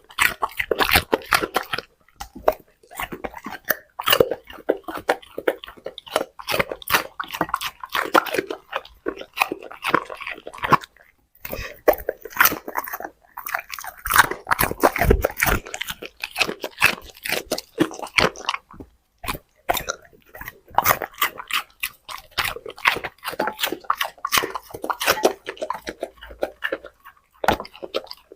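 A dog chewing and crunching food in a long, rapid run of crunches, broken by a few brief pauses.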